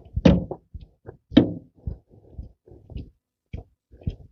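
Irregular knocks, clicks and scrapes of hand tools and metal parts being handled during an alternator install, with a couple of sharper knocks near the start and about a second and a half in.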